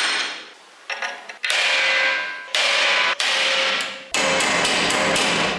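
Hammer blows on a steel punch driving out rivets ground flush on a rusty steel plate held in a vise. There are about five sharp strikes, each followed by a brief metallic ring.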